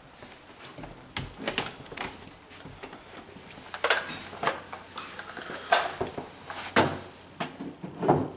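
A closet door being opened, amid a string of sharp knocks and clatters.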